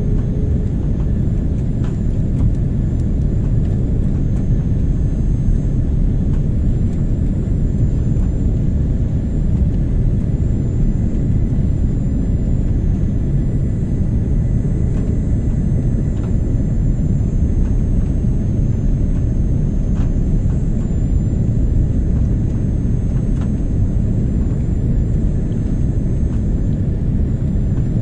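Steady low rumble of a jet airliner's engines and airflow, heard inside the passenger cabin during descent.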